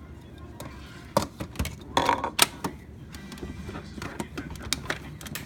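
Irregular small clicks and knocks of toy kitchen pieces being handled, a cup being tried against a toy microwave, with a denser clatter about two seconds in.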